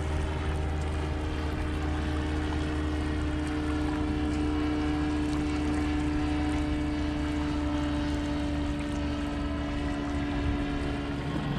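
Propeller engine of an ultralight trike (motorised hang glider) droning steadily overhead, one held pitch with its overtones.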